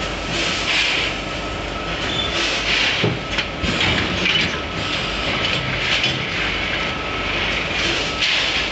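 SAMFULL SF-420WM stand-up pouch packing machine running through its cycle: a steady mechanical clatter with a hiss about once a second as its pneumatic cylinders work.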